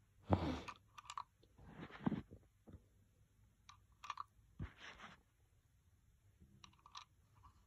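Faint, scattered clicks and light scrapes of small plastic Playmobil toy pieces being handled, as boarding-pass cards are slotted into the check-in desk's holder.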